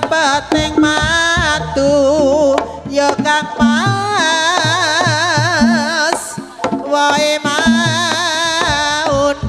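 Javanese jaranan music: a melody with heavy wavering vibrato over repeated hand-drum strokes and low sustained tones.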